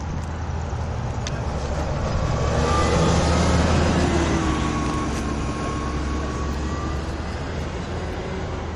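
A motor vehicle passing by: its road and engine noise swells to a peak about three to four seconds in, then fades away.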